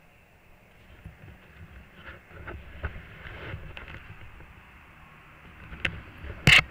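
Handling noise on a helmet-mounted action camera: rustling and rumbling with scattered clicks, and one loud knock near the end.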